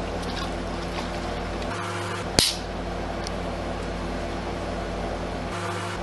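A drink can's pull-tab snapping open with a short hiss about two and a half seconds in, then the drink pouring out and splashing onto the steel cold plate of an ice cream roll machine, over a steady low hum.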